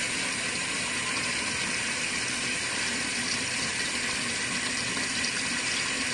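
Water running steadily from a faucet into an RV washing machine's tub, filling it with warm water toward the medium level.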